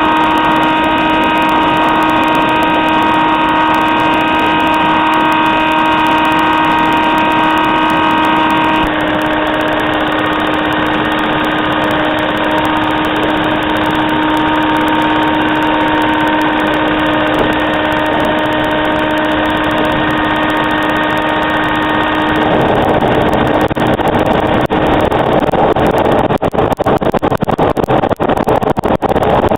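Waste-oil-fired furnace running on used motor oil: a loud, steady mechanical drone with a few held tones. The tones shift about nine seconds in, and from about twenty-two seconds it turns rougher and noisier, with brief dips near the end.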